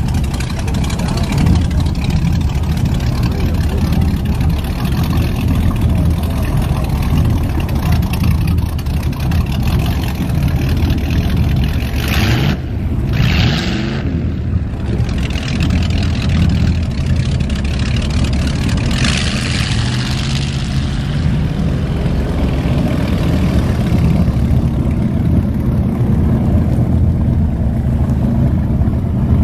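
Inboard engines of antique wooden runabouts running at low speed as the boats pass, a steady low rumble. Brief washes of hiss come twice, about twelve and nineteen seconds in.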